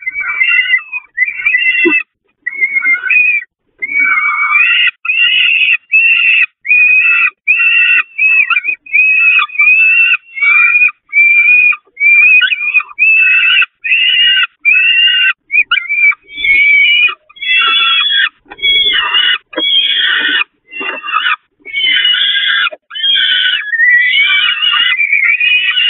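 Peregrine falcon chicks giving loud, harsh begging calls, repeated a little over once a second, while the adult feeds them. The calls grow rougher and more crowded in the second half.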